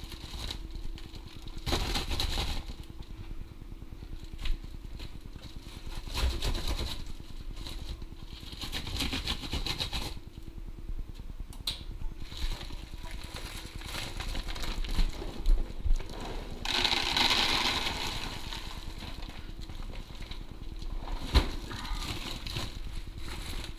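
Large plastic pet-food bag being handled and opened by hand, crinkling and rustling in irregular bursts, with a few small knocks in between.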